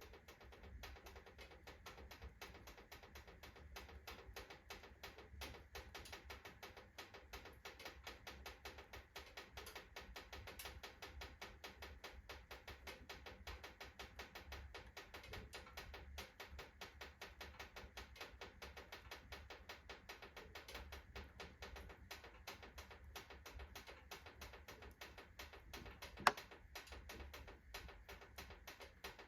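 Wood fire crackling in a freshly loaded fireplace stove, with fast, dense small clicks and ticks from the burning kindling and from the stove's iron expanding as it heats. One sharp, loud crack comes near the end.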